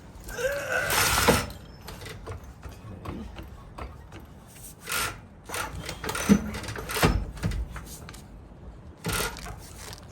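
Hand work on a pickup truck's rear suspension: a creaking scrape about a second in, then scattered sharp knocks and clanks of tools against metal parts.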